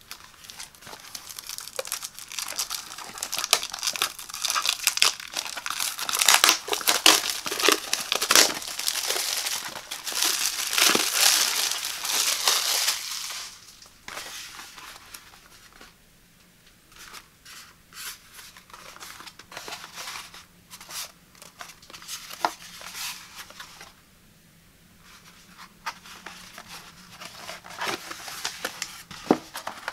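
Plastic shrink-wrap being torn and peeled off a cardboard box, crinkling densely for about the first thirteen seconds. After that come quieter, scattered taps and scrapes of hands turning the bare cardboard box.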